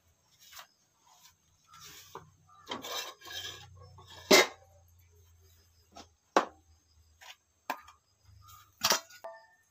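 Handling noise: cloth rustling and a few sharp knocks and taps as the woman shifts and reaches for things. The loudest knock comes about four seconds in.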